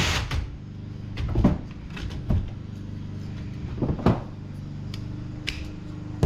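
Scattered clicks and knocks of hands working parts loose inside a desktop computer case, over a low steady hum.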